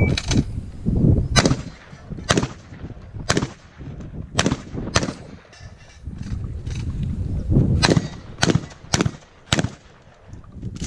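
A series of shotgun shots, about a dozen, fired roughly one a second, with a gap of a couple of seconds around halfway. A low rumbling noise runs between the shots.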